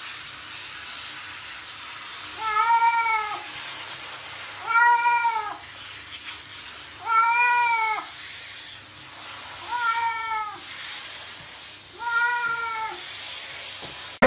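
A cat meowing five times, about every two and a half seconds, each meow rising and then falling in pitch. A handheld shower head hisses steadily under the meows as water runs over the cat.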